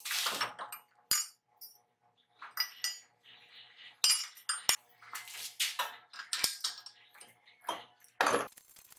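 Small steel bracket pieces clinking and clattering as they are handled against a steel bench vise and workbench: irregular metallic knocks and scrapes, with a louder clank near the end.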